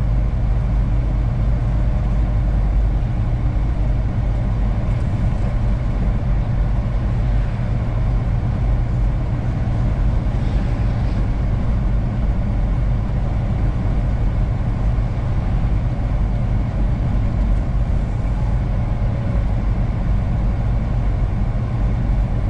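Steady low engine drone and road noise inside the cab of a truck driving along at an even speed.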